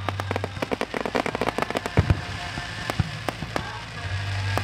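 Fireworks display: a rapid string of crackling pops from bursting shells, then two heavier bangs about a second apart, followed by scattered single cracks.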